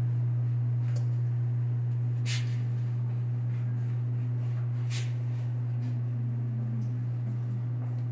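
Steady low electrical or mechanical hum of kitchen equipment, with a few light knocks about 2 and 5 seconds in.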